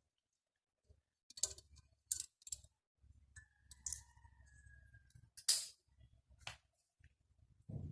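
A string of sharp clicks and snaps, about six over several seconds and loudest about five and a half seconds in, from parts and tools being handled at a refrigerator compressor, with a faint thin squeak sliding slightly lower in the middle.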